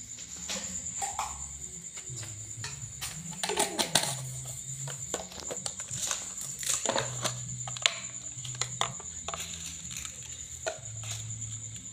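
A metal spoon clicking and scraping against a ceramic bowl as minced meat is mixed and seasoned, with soft background music.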